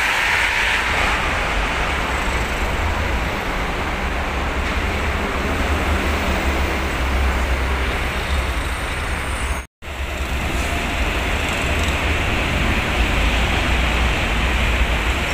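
Heavy toll-road traffic, buses and trucks passing close by with a steady engine and tyre rumble. The sound cuts out completely for a moment about ten seconds in, then resumes.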